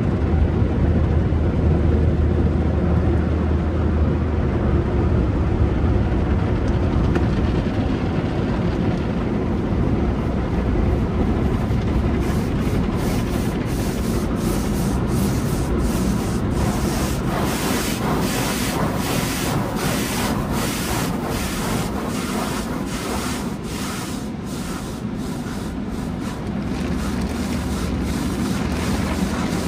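Automatic tunnel car wash heard from inside the car: a steady rush of water spray and foam over the body with a low hum. From about twelve seconds in, rapid swishing strokes of the soft-cloth wash brushes rubbing across the car.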